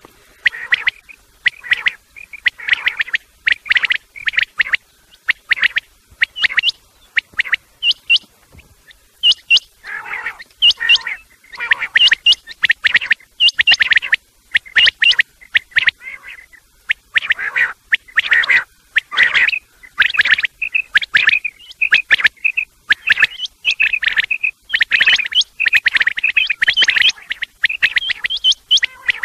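Quail calling: a loud, dense string of short chirping notes repeated rapidly with only brief pauses, a call recording of the kind played to draw quail in for a morning hunt.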